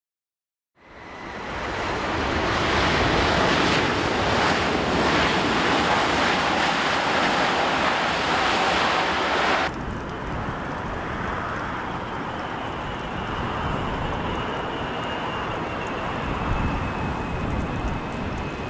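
Airbus A380 jet engines: a loud, steady roar fades in about a second in as the airliner rolls along the runway, and cuts off abruptly just before halfway. Then comes the quieter sound of an A380 on final approach, with a faint engine whine slowly falling in pitch as it nears touchdown.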